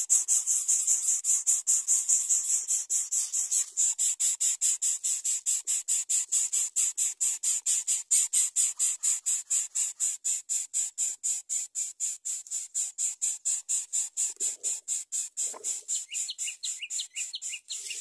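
Insect chirping in a high, fast, even pulse of about five chirps a second that slowly grows fainter. Two short low sounds come near the end.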